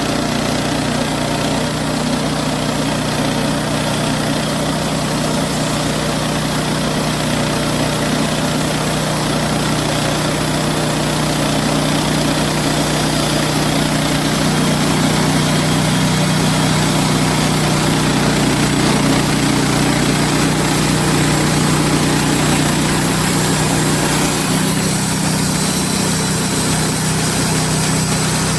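Wood-Mizer LX50 Super portable band sawmill running steadily under its engine, with the band blade cutting through a larch log; the engine note shifts a little near the end.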